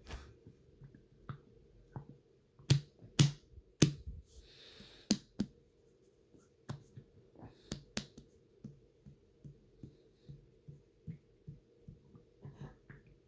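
Stomach noises from water sloshing in a person's stomach: a run of sharp pops with a short hissing squelch among them, loudest in the first half, then softer low thuds about twice a second.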